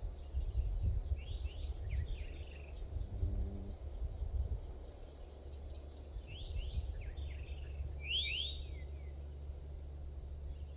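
Wild birds singing: repeated quick downward-sliding chirps and short high buzzy trills, over a steady low rumble.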